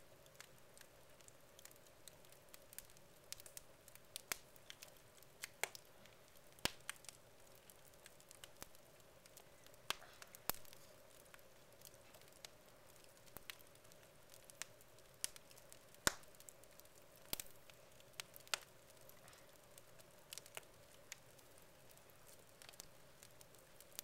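Wood fire of split logs in a fireplace crackling, with irregular sharp pops; the loudest pop comes about two-thirds of the way in, over a faint steady hum.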